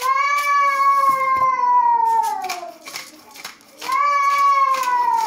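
A house cat meowing twice in long, drawn-out calls, each sliding down in pitch, the first running about two and a half seconds and the second starting near the end. Between the calls come light clicks, which fit a seasoning shaker being shaken.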